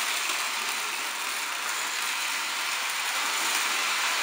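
Postwar Lionel 2025 steam locomotive and its freight cars running around three-rail O-gauge tin-plate track on DC power, with a steady whirring and clatter of motor gears and wheels on the rails.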